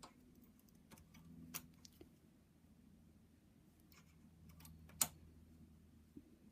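A few faint, sparse clicks of a metal transfer tool against the needles of a Brother knitting machine as knitted loops are hung onto them, the sharpest about five seconds in.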